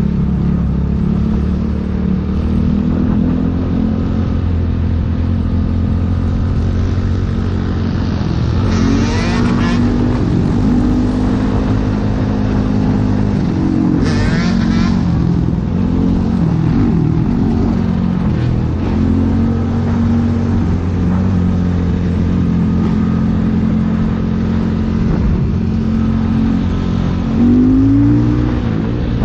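Motorcycle engine running under way, its pitch shifting with speed. Near the end it revs up briefly and gets louder.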